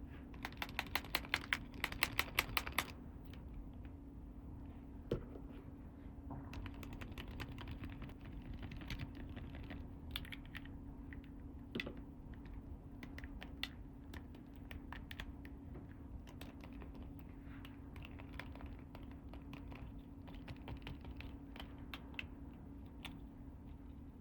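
Small plastic toy pieces being handled, clicking and tapping. A quick run of clicks comes in the first few seconds, followed by scattered single clicks and taps over a steady low hum.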